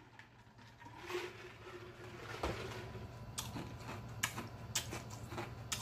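A man drinking ice water from a glass mug, then setting the mug down with a single dull knock about halfway. After that come about five sharp, spaced crunches of ice being chewed with his mouth closed.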